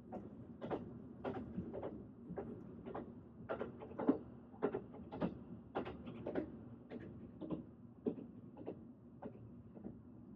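Train running, its wheels clacking over rail joints in a steady rhythm of about two knocks a second over a continuous low rumble.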